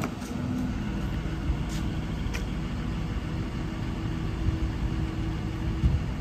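Doosan DX170W-5 wheeled excavator's diesel engine idling steadily, with a few faint clicks over it.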